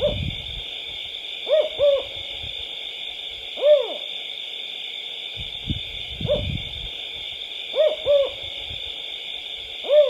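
An owl hooting: short hoots, some single and some in quick pairs, repeated every two seconds or so, over a steady high hiss, with a few low thumps near the start and around the middle.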